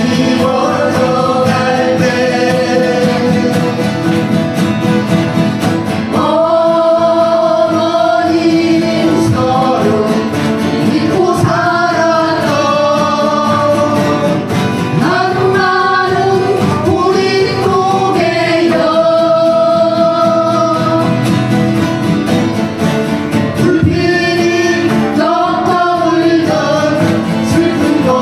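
A group of acoustic guitars strummed together, accompanying singing into microphones. The song goes in sung phrases with long held notes.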